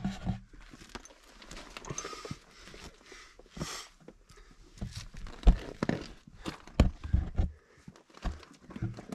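Scrambling on steep rock: scattered, irregular knocks and scrapes of boots, hands and a GoPro selfie pole against the rock, the loudest knocks a little after five seconds in and around seven seconds.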